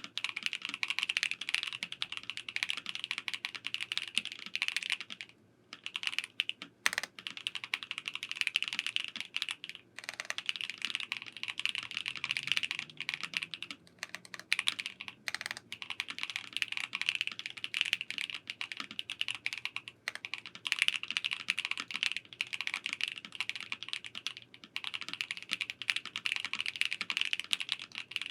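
Fast, continuous typing on an ASUS ROG Azoth Extreme mechanical keyboard (aluminium gasket-mount chassis, pre-lubed ROG NX Snow switches): a dense run of key clicks broken by a few short pauses. One sharper, louder key strike comes about seven seconds in.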